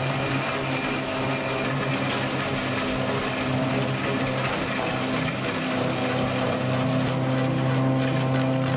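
Heavy forestry machine's engine running steadily, a constant hum over a dense mechanical noise, shifting slightly about halfway through.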